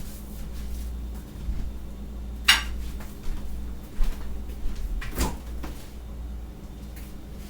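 Kitchen handling noises: a sharp clack about two and a half seconds in and another about five seconds in, with lighter knocks between them, as things are put away.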